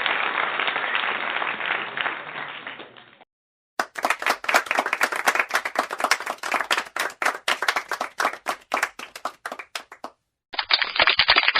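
Applause sound effects in turn. A crowd's applause fades out over the first three seconds. After a brief gap comes clapping with distinct individual claps, thinning out near ten seconds. Another burst of dense applause starts near the end.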